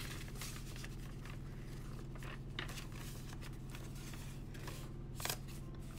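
Paper pages of a handmade junk journal being handled and turned by hand: a few soft paper rustles, the clearest about two and a half and five seconds in, over a steady low hum.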